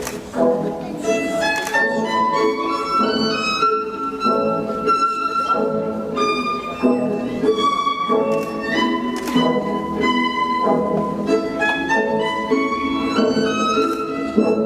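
Classical-style music with violin and bowed strings playing a flowing melody in stepwise runs.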